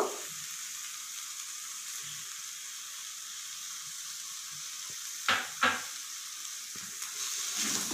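Soya keema with diced potato and peas sizzling steadily in a frying pan. About five seconds in there are two short knocks, a third of a second apart.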